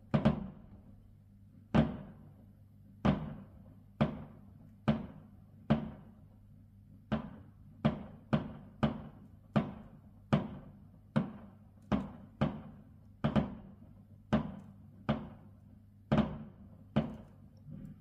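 Fireworks exploding overhead, heard from indoors: about two dozen sharp bangs at irregular intervals, each trailing off in an echo. A faint steady low hum runs underneath.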